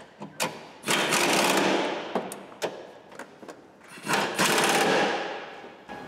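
Cordless impact wrench hammering in two bursts of about a second each, undoing bolts.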